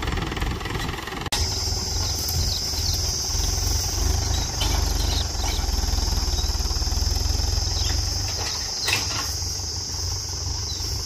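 Mahindra diesel tractor engine running with a steady, pulsing low rumble. A steady high-pitched insect buzz joins it after a brief cut about a second in.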